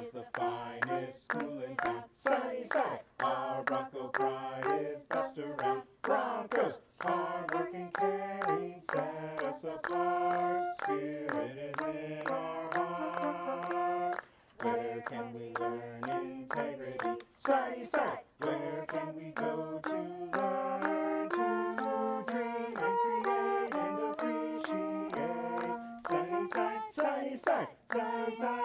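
Multitracked group singing of a school spirit song by a man's and a woman's voices layered in parts, with steady hand claps on the beat, over flute and clarinet lines.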